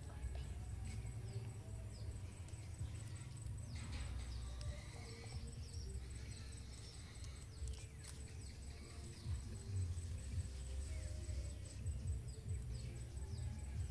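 Outdoor ambience: a steady low rumble with faint chirping of insects and birds, and a single sharp click about eight seconds in.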